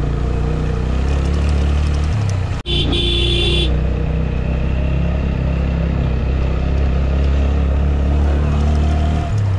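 Motorcycle engine running steadily under way, a strong low drone. A little over two and a half seconds in the sound drops out for an instant, then a steady high tone sounds for about a second over the engine.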